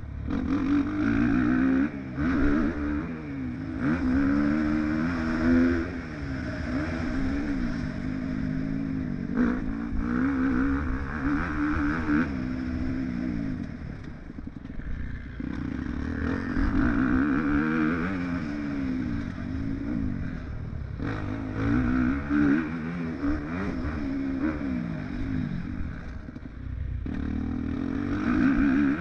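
Motocross bike engine heard from the bike's own onboard camera, revving up and falling back over and over as the rider accelerates down the straights and shuts the throttle for the corners. There are brief drops in engine sound about halfway through and again near the end.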